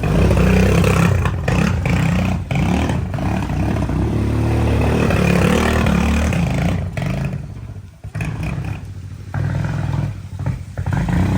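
Small engine running close by and revving, with a heavy low drone; it drops away about seven seconds in and picks up again near the end.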